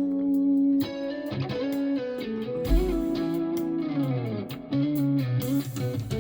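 Recorded music with a guitar melody, played through Radiant Acoustics Clarity 6.2 bookshelf speakers with subwoofers and heard through a phone's built-in microphones in the room. Sustained notes glide down in pitch midway, and a deep bass hit lands a little under halfway through.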